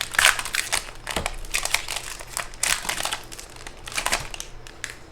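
Wrapper of a 2024 Panini Score football card pack being torn open and crinkled by hand: irregular crackling rustles that thin out near the end.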